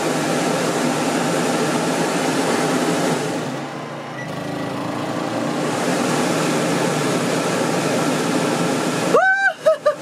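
Dometic Brisk II 13,500 BTU rooftop RV air conditioner running on high fan, a steady hum and rush of air. About three and a half seconds in the sound dips briefly and then settles back as the compressor kicks on, starting on generator power with the help of a hard start capacitor.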